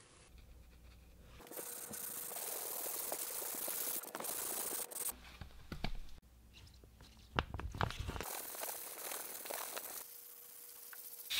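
A wooden tool handle being rubbed and scraped by hand. Stretches of hiss are broken by a run of sharp clicks and crackles around the middle.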